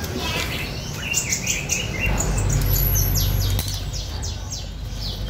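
Many caged songbirds chirping: a busy run of short, high, falling chirps, over a low rumble that swells for a second or so in the middle.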